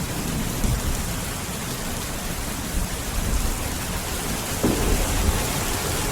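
Steady rain, with a low rumble of thunder underneath.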